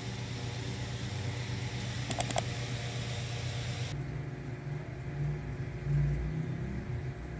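Steady low mechanical hum with a light hiss over it, like a small room with an appliance running. A quick cluster of four or so clicks comes about two seconds in, and the high hiss drops away about four seconds in.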